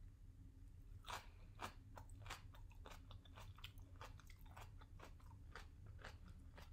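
Faint crisp crunching of a cube of radish kimchi (kkakdugi) being chewed with the mouth close to the microphone, starting about a second in and going on at about three crunches a second.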